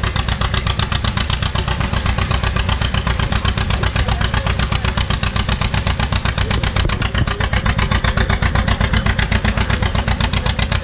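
Farm tractor engine working hard under load as it pulls the weight sled, its exhaust beating in a fast, even rhythm.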